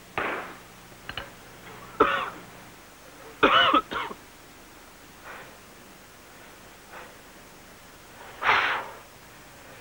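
A man coughing in short, irregular fits, about six coughs spread over several seconds, the loudest about three and a half seconds in and again near the end. He is choking on the stale air inside a mine and gasping for fresh air.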